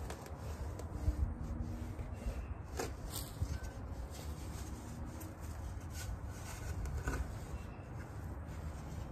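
Steel shovel scraping and cutting into dry soil and matted grass, with a few sharper knocks about three seconds in and again near seven seconds, over a steady low rumble.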